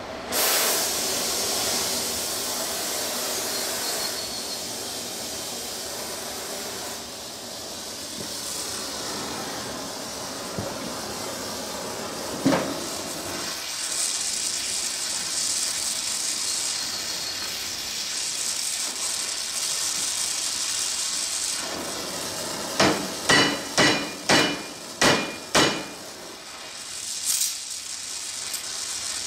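Gas torch lit with a sudden whoosh and then hissing steadily as it heats the seized steering wheel hub to break it loose. About two-thirds of the way through come six sharp metallic strikes in quick succession, each with a short ring, like hammer blows on the steering wheel.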